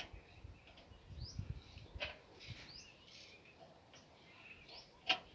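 Small birds chirping: short, high, upward-sweeping calls every second or so, with a few sharp clicks and a low rumble about a second in.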